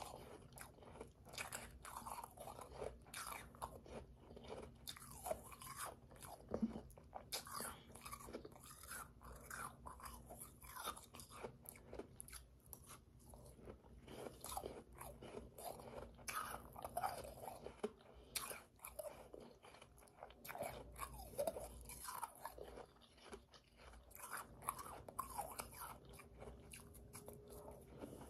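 Chewing a mouthful of powdery, slushy ice: a run of irregular soft crunches with a few brief pauses.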